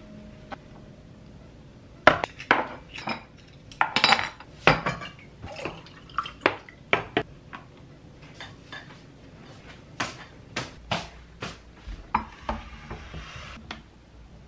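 Ceramic bowls, a drinking glass, a spoon and wooden chopsticks being set down on a wooden tray: a run of light clinks and knocks, the loudest about two seconds in, then a brief soft scrape near the end.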